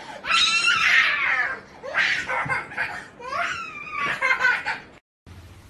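A toddler laughing and squealing in several high-pitched bursts. The sound cuts off suddenly about five seconds in.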